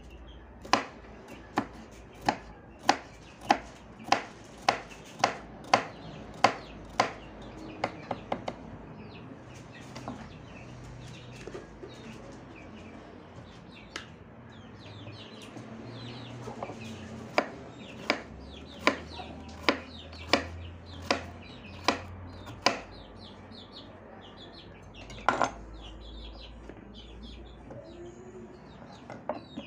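Kitchen knife slicing bitter melon on a wooden chopping board: the blade knocks on the board at about two strokes a second, in two runs with a quieter stretch in the middle and a few single cuts near the end.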